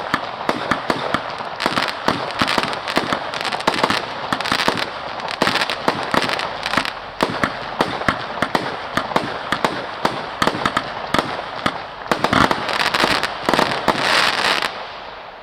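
Scorpion 100-shot fireworks battery firing: rapid shots and bursts, several a second, over a continuous crackle, stopping suddenly near the end.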